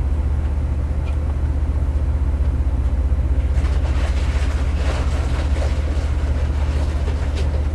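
Steady low droning hum that holds at one level throughout, with faint rustling noise over it about four to five seconds in.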